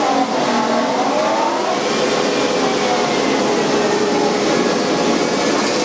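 CNC router cutting a pattern, with some chatter: tones that rise and fall as the machine moves through its toolpath, then settle, over the steady rush of a dust collector drawing air.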